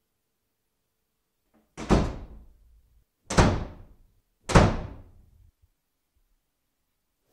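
Three heavy bangs on a door, a little over a second apart, starting about two seconds in, each one ringing out briefly.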